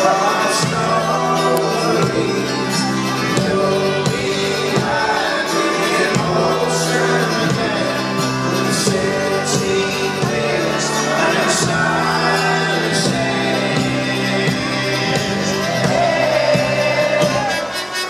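Live folk-rock band playing with singing, with accordion, double bass and banjo in the mix and crowd voices joining in.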